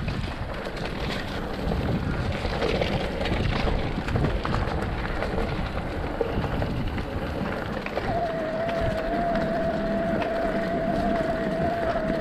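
Mountain bike descending a trail: steady wind noise on the microphone and tyres rattling over the ground. About eight seconds in, a steady high squeal starts and holds, typical of a bicycle disc brake dragging on the descent.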